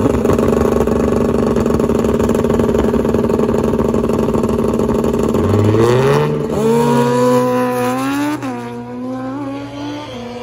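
A race car engine held at steady high revs, then accelerating with a rising pitch, a sharp drop in pitch about eight seconds in like a gear change, and fading as it pulls away.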